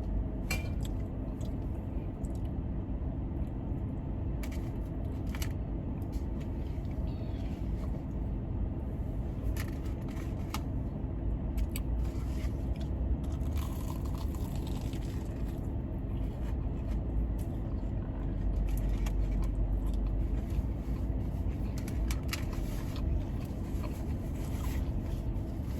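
Steady hum of a car's air conditioning with the idling engine, with scattered crunches and mouth sounds of eating.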